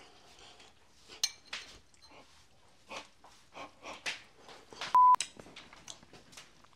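Chewing and small clicks of a fork against a bowl, then one short, loud electronic beep of a single steady pitch about five seconds in.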